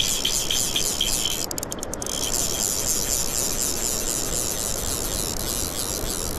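Fly reel's click-and-pawl drag ratcheting in a fast, high buzz that swells and fades with each turn of the crank as a hooked rainbow trout is reeled in. It breaks off briefly about one and a half to two seconds in, then runs on until it stops suddenly at the end.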